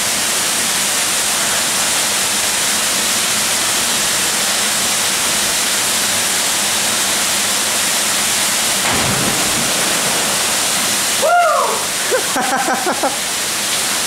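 Steady rush of a waterfall pouring into its pool. About eleven seconds in, a person shouts once, followed by a few short bursts of voice.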